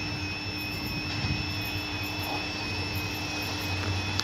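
Diesel locomotive approaching at the head of a passenger train, its engine a steady low hum with a steady high whine over it.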